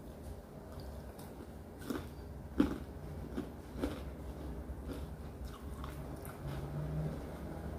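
A person chewing and biting fried stinky tofu close to the microphone, with a few short sharp clicks, the loudest about two and a half seconds in, over a low steady hum.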